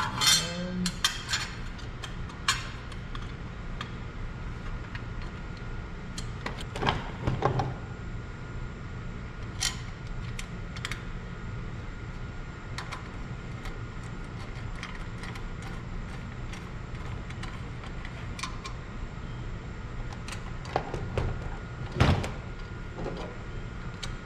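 Scattered metal clicks and clinks as a small sheet-metal cooling shroud and its screw are fitted by hand to a small engine, with a few louder clanks near the start, about seven seconds in and near the end. A steady low hum runs underneath.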